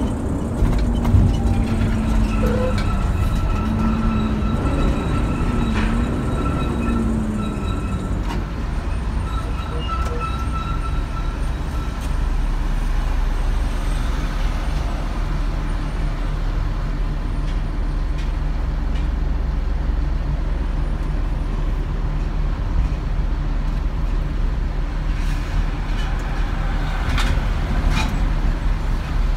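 Heavy truck's engine running steadily as it drives, with a low drone and road noise heard from inside the cab.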